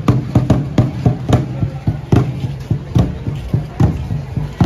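Drums beaten in a steady rhythm, about three or four strikes a second with louder accented beats, over crowd chatter.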